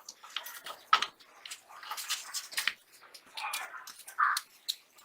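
Irregular sharp clicks and light knocks with short scraping noises, like small hard parts being handled and fitted.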